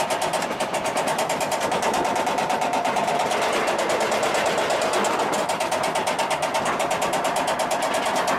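Goliath roller coaster train climbing its chain lift hill, the lift chain and track dogs clacking rapidly and evenly, several clacks a second, with a steady mechanical hum underneath.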